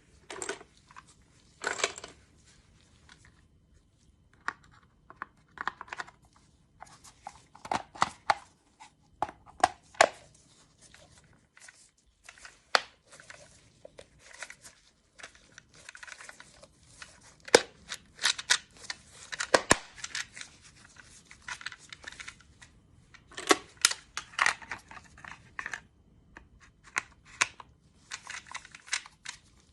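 Magpul D-60 polymer drum magazine being handled and worked on: irregular clicks, snaps and scraping of plastic parts, in bursts, loudest about halfway through and again about three quarters through.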